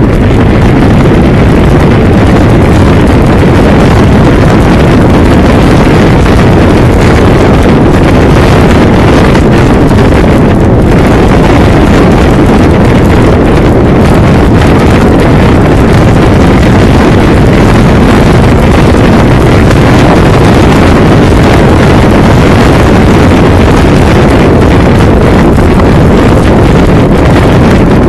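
Wind buffeting the microphone of a camera on a moving motorcycle, a loud, steady rush with the motorcycle's running and road noise mixed in beneath it.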